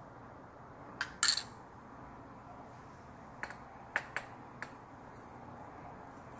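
A metal spoon clinking lightly against ceramic dishes as sauce is spooned over acorn jelly: two clinks about a second in, the second the loudest, then a few lighter ticks between three and five seconds in.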